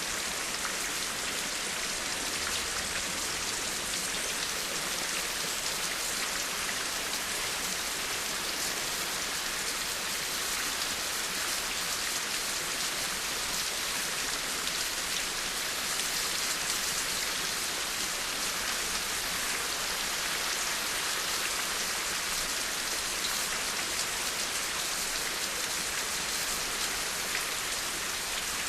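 Steady rain with a dense patter of drops, an even hiss that does not let up.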